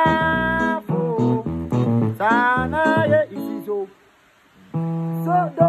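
Yamaha portable keyboard played with both hands in a guitar-like voice: a low bass-line pattern under a higher lead line whose notes sometimes slide up in pitch. The playing stops briefly about four seconds in, then resumes.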